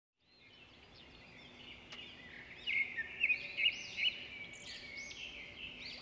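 Several birds singing and chirping in a forest, short high calls repeating and overlapping, loudest a little before the middle, over a faint steady hiss.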